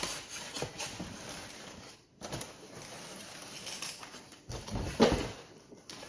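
Packaging being handled during an unboxing: irregular rustling and crinkling with small knocks, briefly pausing about two seconds in and loudest around five seconds in.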